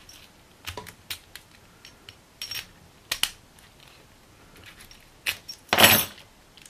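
Small metal clicks and scrapes of a key and a pin-tumbler lock cylinder being handled, the key pushed into the keyway to reset the pins. A louder, longer scrape comes near the end.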